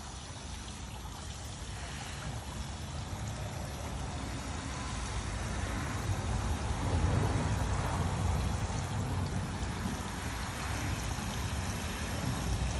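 Water from a garden hose spray nozzle on a gentle setting running into the soil of a hanging flower basket, a steady flow that grows a little louder around the middle.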